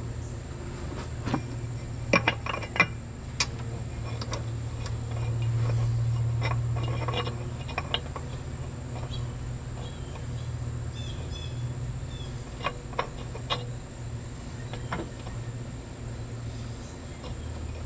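Light metallic clinks and knocks of aluminium intercooler parts being handled and test-fitted, scattered through, over a steady low hum.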